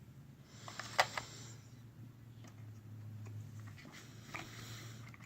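A few light clicks and ticks of small steel sockets being handled and knocking in a socket-set case, the sharpest one about a second in.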